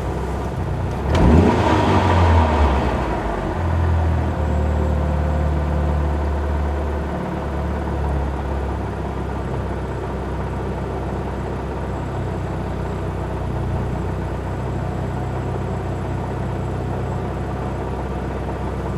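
Mitsubishi Lancer Evolution's turbocharged four-cylinder engine idling roughly, its low hum wavering unevenly. About a second in, the revs briefly rise and fall back over a couple of seconds.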